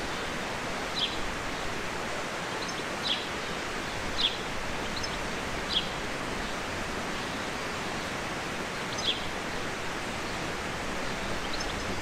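Steady hiss of rural outdoor ambience with small birds calling over it: about five short, high chirps, each a quick falling note, spread through, with a few fainter ones between.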